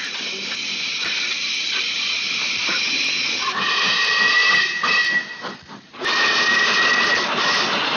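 Steam locomotive hissing steadily as it lets off steam, then its steam whistle blowing twice in the second half, breaking off briefly in between, with the hiss continuing underneath.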